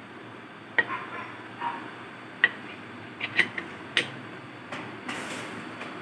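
Sharp metal clicks and clinks of an aluminium pressure cooker being closed: the lid handle locked and the pressure weight set onto the vent, about ten knocks in all, the loudest about four seconds in, then a short hiss, over a steady background hiss.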